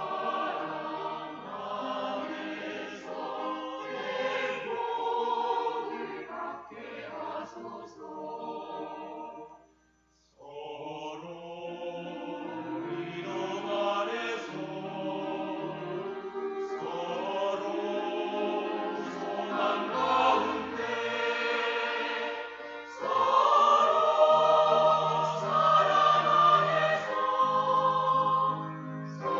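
Church choir singing a hymn in parts. It breaks off for a moment about ten seconds in, comes back in, and swells louder for the last several seconds.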